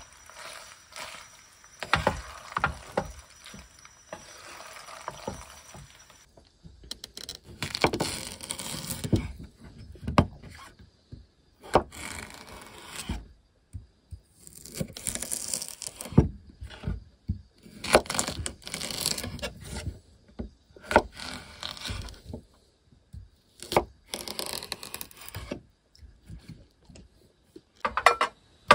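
Cooking sounds: a wooden spatula scraping and stirring pasta in a frying pan, then a knife slicing a cucumber on a wooden cutting board in a series of short bursts and sharp knocks. Near the end, a loud knock or two as food is served.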